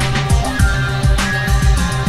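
Music with a steady beat: deep bass notes and drum hits, with a sharper crack about once a second.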